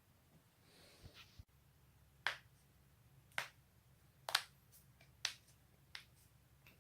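Joints cracking: a run of about five sharp pops roughly a second apart, starting about two seconds in, the loudest near the middle.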